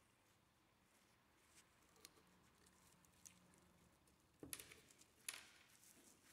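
Faint scraping and small clicks of a rusted steel washer being worked loose on the spindle of an old grinding stone, with two sharper clicks about four and a half and five seconds in as a lump of crusted rust breaks away.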